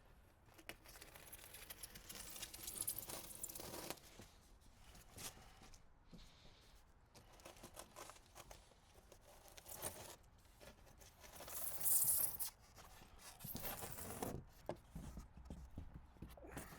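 Handwork on rigid foam-board RV skirting: irregular scraping, rustling and tearing sounds of the board being cut and handled and foil tape being worked, with a longer stretch of scraping early on and the loudest burst about twelve seconds in.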